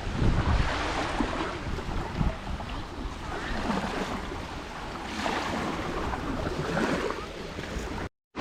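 Wind buffeting the camera microphone, a gusty rushing rumble that swells and fades. It cuts out abruptly for a moment near the end.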